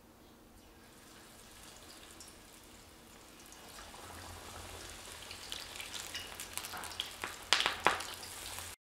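Battered onion rings sizzling and crackling in hot frying oil. The crackle builds over the second half and ends with a couple of loud sharp pops before cutting off suddenly.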